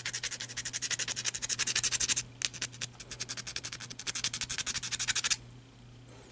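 A small hand file rasping back and forth on a Rubik's cube plastic center tile, cutting a notch in quick, even strokes of several a second. It pauses briefly a couple of seconds in, resumes, and stops about a second before the end.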